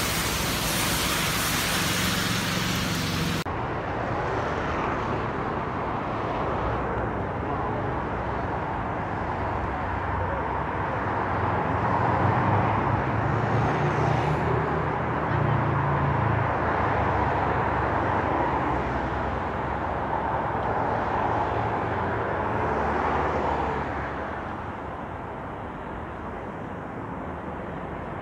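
A steady rain-like hiss that cuts off suddenly about three seconds in, followed by road traffic: cars driving past with a steady engine and tyre hum. It swells around the middle and eases off near the end.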